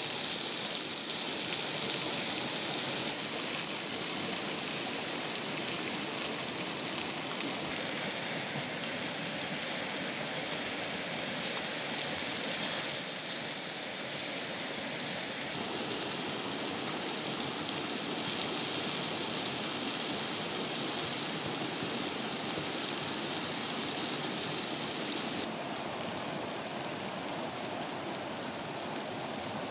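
Whole frogs sizzling on a fire-heated flat stone: a steady hiss of cooking, changing tone suddenly a few times.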